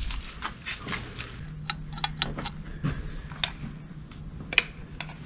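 Scattered sharp, irregular clicks and crackles of footsteps over a floor strewn with flaking paint and debris, with a wall light switch clicked near the end. A low steady hum comes in about a second and a half in.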